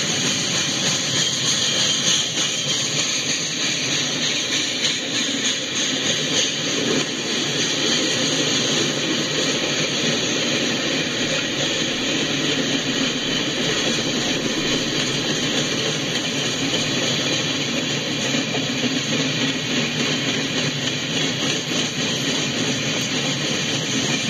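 Freight train cars rolling past on the rails: a steady, unbroken rumble and rattle of steel wheels on track.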